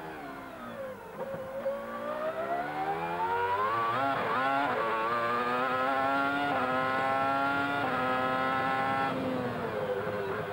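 Onboard sound of the McLaren MP4/15's Mercedes-Benz V10 Formula 1 engine. The note drops as the car slows for a corner, climbs steadily as it accelerates out, holds high along the straight with a couple of quick gear changes, and falls away near the end as the driver lifts for the next corner.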